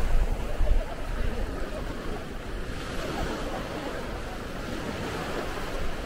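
Sea waves washing on a beach in a steady surf, with wind buffeting the microphone, strongest in the first second.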